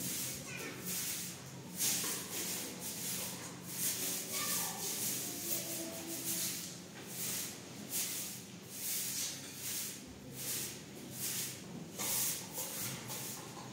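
Rhythmic swishing strokes, about two a second, over a faint steady hum.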